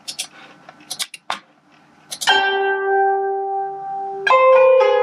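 A few clicks, then playback of the score from the music-notation software: a synthesized instrument holds one long note of the Hüzzam melody in Yarman-24c microtonal tuning, and a second note comes in about two seconds later.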